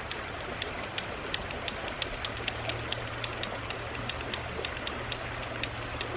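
Small stream flowing steadily, an even rushing hiss, with a scatter of faint sharp ticks, several a second, over a low steady hum.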